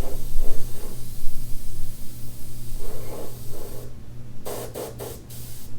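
Air spray gun spraying thinned sizing glue: a steady hiss that stops about four seconds in, followed by a few short bursts of spray.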